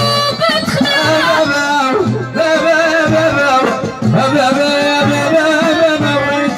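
Moroccan aita zaaria folk music: a violin, bowed upright on the knee, plays a wavering, ornamented melody over repeated hand-drum strokes.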